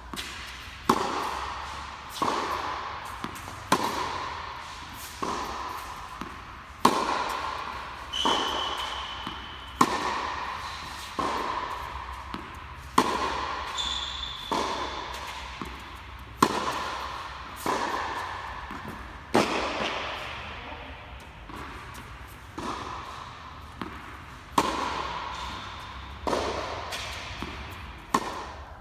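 Tennis ball rally: balls struck by a racket and bouncing on the court, a sharp pock about every second and a half, each one ringing on in the echoing fabric-walled indoor tennis hall. Two short high squeaks cut in about eight and fourteen seconds in.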